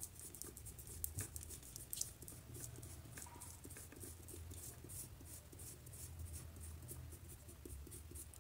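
Eraser rubbed rapidly back and forth on drawing paper, scrubbing out graphite pencil shading: a faint, dry, scratchy rustle of many short strokes.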